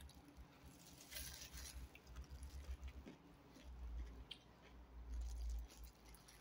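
Faint close-up chewing and eating sounds, with low bumps and a brief crinkle of a clear plastic food glove about a second in.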